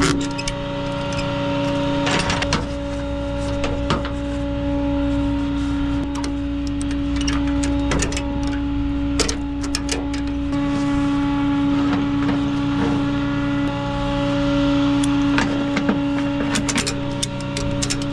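A flatbed tow truck running with a steady, even-pitched hum, a deeper rumble added for several seconds in the middle, and scattered sharp clicks throughout from loading work on the bed.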